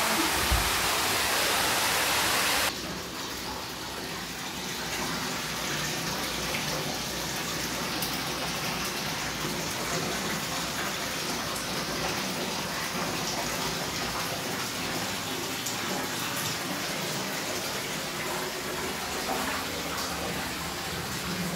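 Floodwater rushing and gushing indoors: a loud rushing hiss that drops away suddenly about three seconds in, leaving steadier, quieter running and splashing water.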